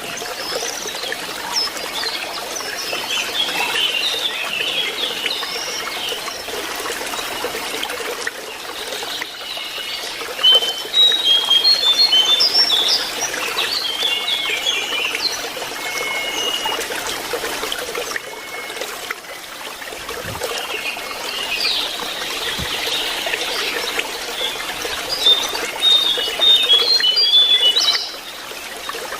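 Lesser shortwing song, bouts of quick, high chirping and short whistled notes, over the steady trickle of running water.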